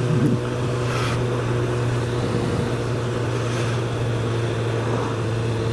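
Suzuki GSX-S1000's inline-four engine running at a steady cruising speed, heard from onboard the motorcycle. A broad rush of wind and road noise runs under it.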